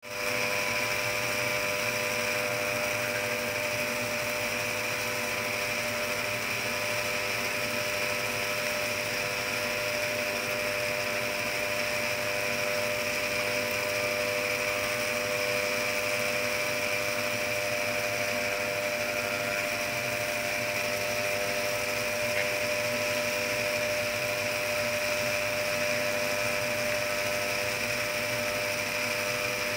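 Circular Knitic circular knitting machine running steadily, a continuous motor whir with a constant hum.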